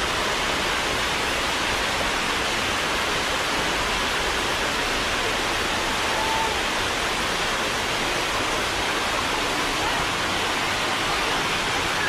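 Shallow waterfall cascade rushing steadily over rock steps, a constant, even wash of water noise.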